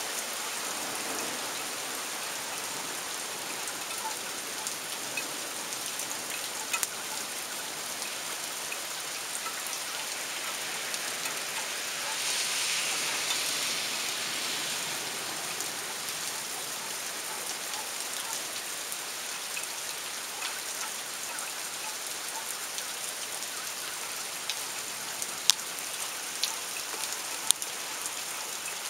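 Steady rain falling, an even hiss that swells for a few seconds around the middle, with a few sharp taps near the end.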